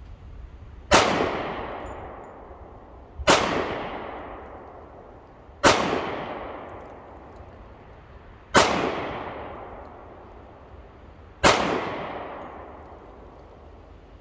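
Five shots from a Sarsilmaz SAR K2 .45 ACP pistol, spaced about two to three seconds apart. Each crack is followed by a long echo dying away.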